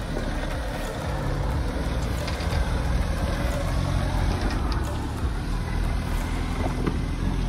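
Mahindra Thar 4x4 driving slowly over a rocky off-road trail: a steady low rumble of engine and tyres, with a few faint knocks and rattles.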